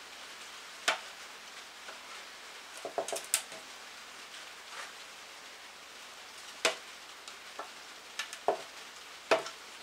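Scattered light clicks and scrapes of a pick and fingers working old, hardened rubber seals out of the grooves of a Hummer H3 valve cover. The clicks come singly, with a short cluster of them about three seconds in, over a low steady hiss.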